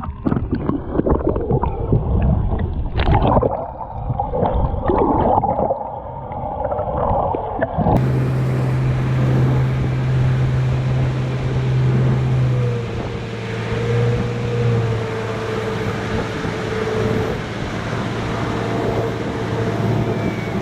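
Muffled water gurgling and knocking for about eight seconds, then a sudden switch to a boat's outboard motor running with a steady low hum over wind and water noise, its pitch wavering slightly.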